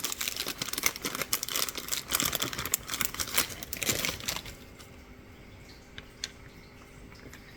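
Metal key being worked in and out of a disassembled lock core, a dense run of scraping and clicking of key and pins for about four and a half seconds, then only a few faint clicks. The key is binding in the core.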